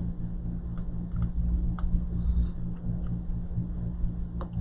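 A steady low electrical hum, with a few faint, light clicks of small tools working on an iPhone 11's internals.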